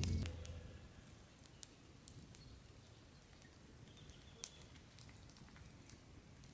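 Faint frying and campfire sounds: a soft hiss with a few sharp, scattered pops and crackles as a fish cooks in oil in a pan.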